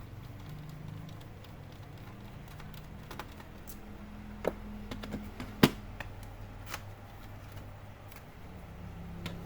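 Scattered small clicks and knocks of laptop parts being handled as the optical DVD drive is pulled out of the laptop. The sharpest knock comes a little past halfway, over a steady low hum.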